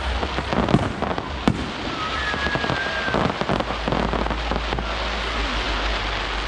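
A fireworks display: two sharp bangs in the first second and a half over dense, rapid crackling, with a short whistling tone a little after two seconds.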